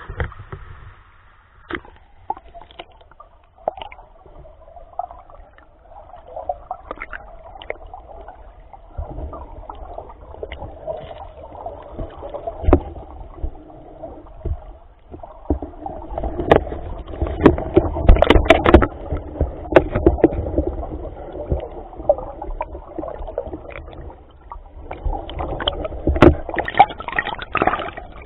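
Creek water rushing and gurgling, heard muffled through an underwater camera, with frequent sharp clicks and knocks. It grows louder from about sixteen seconds in.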